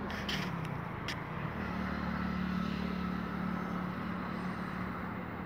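A steady low motor hum that dips in pitch over the first second and a half and then holds level, with a few sharp clicks in the first second.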